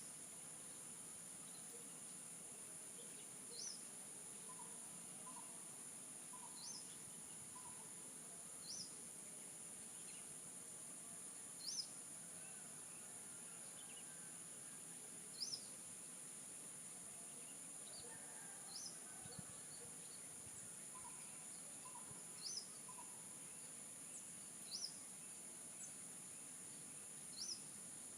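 Faint steady high-pitched drone of insects with a bird giving a short, sharp rising chirp about every three seconds, and a few soft, lower bird notes in between.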